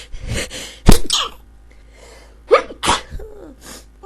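A woman sneezing repeatedly in a sneezing fit: a sharp sneeze about a second in, the loudest, then a rising gasping 'ah' and another sneeze near three seconds in.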